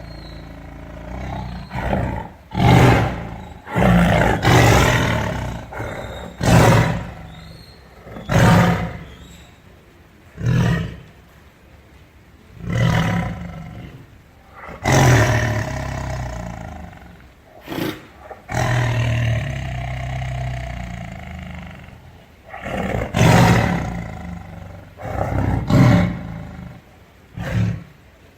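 A big cat roaring: a long series of deep, loud roars and grunts, each about a second long and one to three seconds apart, with one longer drawn-out roar midway through.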